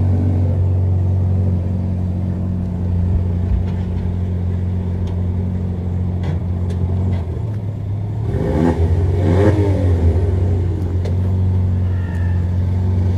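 Volkswagen Jetta 1.4 TSI turbocharged four-cylinder engine idling loudly through its exhaust with the exhaust valve system open. It is blipped twice, each rev rising and falling, about eight and nine seconds in, then it settles back to idle.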